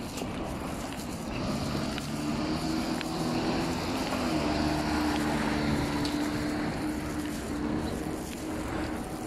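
City street traffic: a motor vehicle's engine hum comes up about a second in, holds steady for several seconds and fades near the end, over a constant background of traffic and wind noise.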